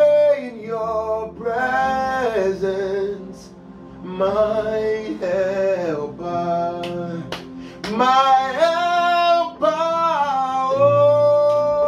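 A man singing gospel worship in long, sliding vocal lines over sustained keyboard chords. Near the end he settles on one long held note.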